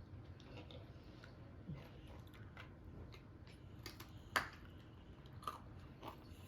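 Faint chewing and crunching of a decorated pre-baked cookie, with scattered small clicks and one sharper click a little over four seconds in.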